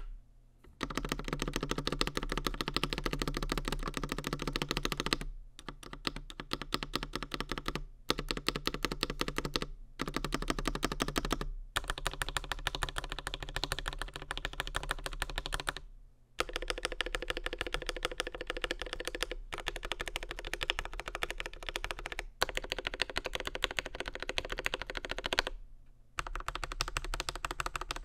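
Fast, continuous typing on a DURGOD K620W mechanical keyboard with linear Gateron CAP Black Crystal V2 silver switches, an aluminium plate and PBT doubleshot keycaps. The key presses come as a dense stream of clacks, broken by several brief pauses.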